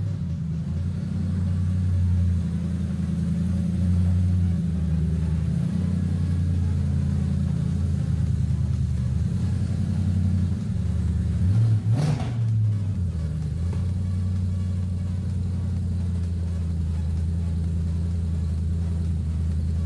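Audi S5's 4.2-litre V8 engine running steadily, with a short rise and fall in pitch about twelve seconds in.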